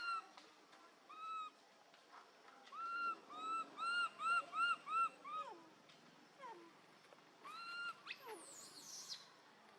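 Infant macaque giving short, arched, whimpering coo calls: one at the start, one about a second in, a quick run of about seven from about three seconds, the last falling away, and one more near the end. These are the plaintive calls of an orphaned infant that can no longer get milk. A brief, very high falling squeak comes near the end.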